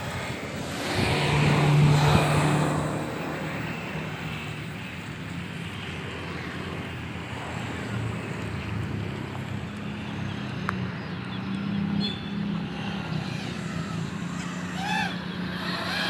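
Motor and propeller of a home-built model airplane droning in flight, swelling louder as it passes close about two seconds in, then holding a steady drone.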